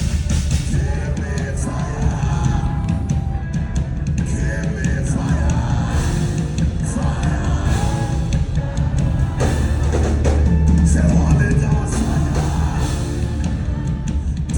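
Loud music with singing, a heavy, steady bass and drums.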